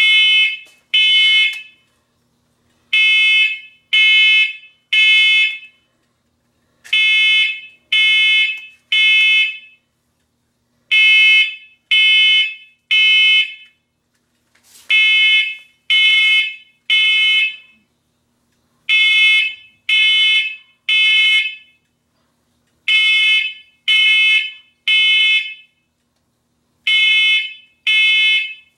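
Photoelectric smoke alarm sounding in the temporal-three fire pattern: three high-pitched beeps, a pause, then again, about every four seconds. It has been set off by smoke from smouldering paper.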